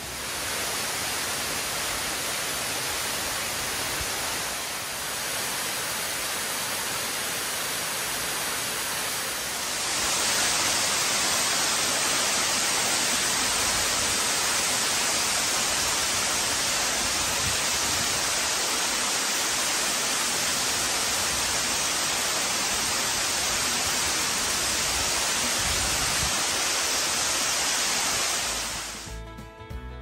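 Steady rush of a waterfall pouring into a rock canyon, becoming louder and brighter about ten seconds in.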